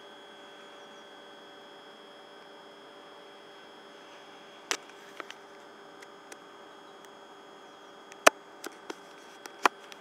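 Steady electrical hum and whine of a Class 450 Desiro electric multiple unit standing at the platform, a few fixed tones and no rising pitch. Several sharp clicks or knocks come in the second half, the loudest about eight seconds in.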